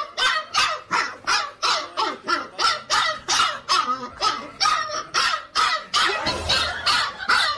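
A dog barking rapidly and without pause, in a steady rhythm of about three short barks a second.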